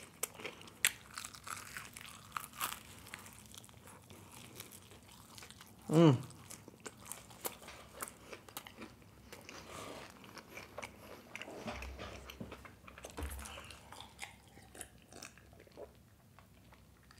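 Close-miked biting and chewing of crispy Popeyes fried chicken: many short crunches and wet mouth clicks. About six seconds in there is a short, loud hum from the eater that falls in pitch.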